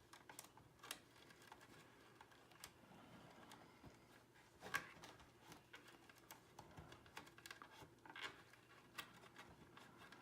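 Faint, scattered small clicks and rustles of wiring harnesses being worked free of the plastic hooks inside a pachinko machine, with one sharper click about five seconds in.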